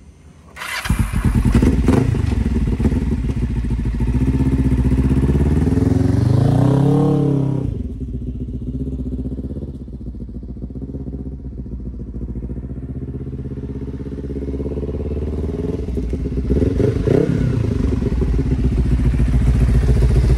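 1998 Kawasaki Ninja 500's parallel-twin engine starting up about a second in, then revving as the bike pulls away. The engine note drops and grows fainter as it rides off, then gets louder again near the end as it comes back, with a brief rev partway through the return.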